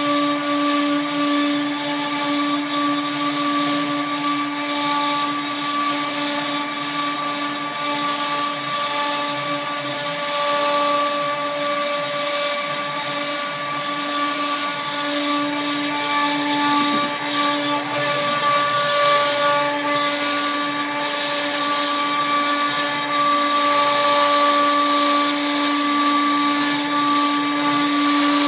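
Spindle of an fbots fcarve gantry CNC router running at a steady whine, with the rough noise of the bit cutting through a large board underneath it. The pitch holds constant while the cutting noise rises and falls a little as the head moves, growing brighter near the end.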